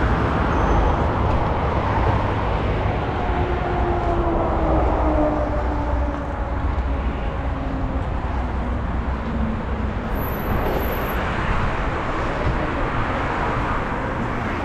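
Road traffic noise and wind rumble on the microphone while cycling beside a busy city road, with a passing vehicle's drone falling in pitch between about four and nine seconds in.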